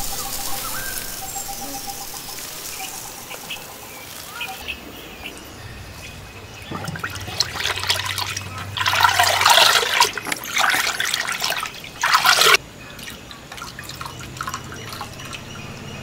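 Raw rice grains pouring into a ridged clay rice-washing bowl (a nambiliya), a hiss that fades over the first few seconds. Then hands swish and rub the rice in water in the clay bowl, splashing in bursts that stop abruptly about twelve seconds in.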